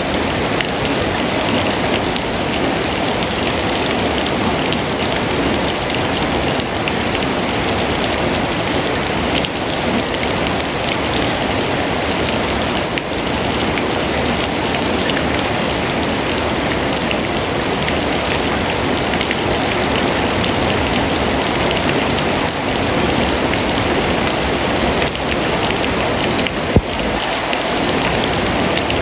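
Steady, dense rainfall pattering on surfaces, an even hiss of countless drops. A single sharp click sounds near the end.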